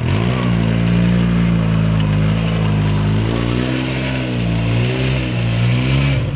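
Four-wheel-drive off-road vehicle's engine running under load, its pitch rising and falling as it is driven around.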